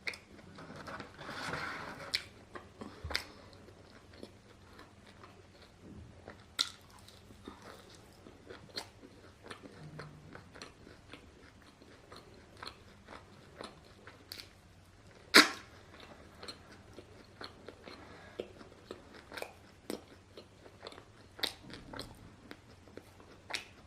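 Close-miked eating of fried takeaway food: chewing with many short, sharp crunches and mouth clicks at an uneven pace, one crunch much louder than the rest a little past halfway.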